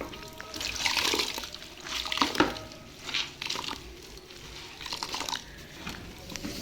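Water splashing and dripping in several short, irregular bursts as a cloth soaked with defrost water from a fridge's drain tray is wrung out.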